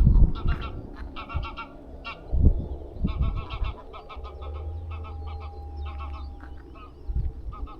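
A flock of geese honking: many short calls overlapping in quick bursts, thinning out after the first few seconds. A few low thumps and, for a couple of seconds in the middle, a steady low hum lie under the calls.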